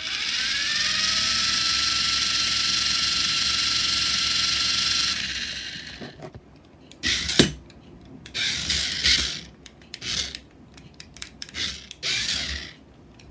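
The small electric motor of a Tombstone BattleBots remote-control toy robot whirs up with a rising whine and runs steadily for about five seconds, then winds down. It is followed by several short bursts of motor whirring and clatter, with a sharp knock about seven seconds in.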